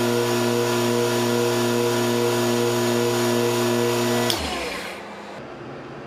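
Lathe motor running with a steady hum while it spins an acrylic pen blank on its mandrel; about four seconds in it is switched off with a click and winds down, leaving a much quieter background.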